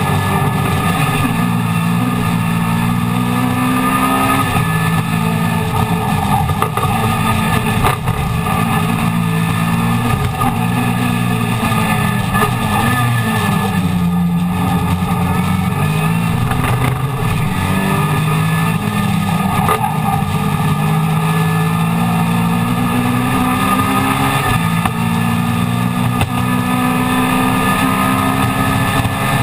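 Mini Miglia race car's BMC A-series four-cylinder engine at racing revs, heard loud from inside the cockpit. The revs climb and drop again and again as the car is driven hard around the circuit.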